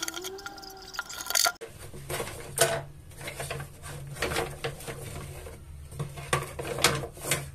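Wooden and bamboo cooking utensils clacking against each other and a glass bowl as they are scrubbed in soapy water, with irregular sharp knocks.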